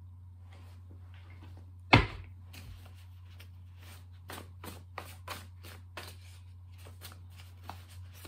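A single sharp knock about two seconds in, then a deck of tarot cards being shuffled overhand by hand: a run of short, irregular card slaps and flicks, a few a second. A low steady hum runs underneath.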